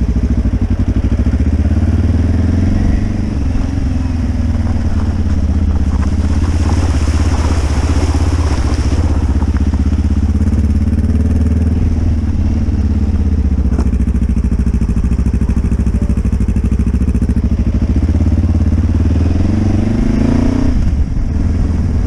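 Dual-sport motorcycle engine running while riding slowly on a dirt track, its note rising and falling repeatedly as the throttle opens and closes.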